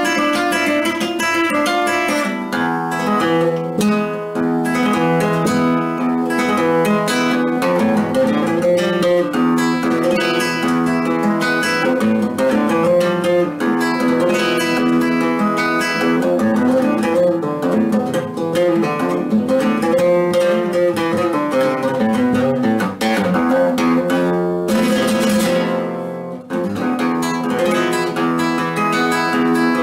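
Solo classical guitar played with the fingers: a continuous stream of plucked notes and chords, with a short break a few seconds before the end.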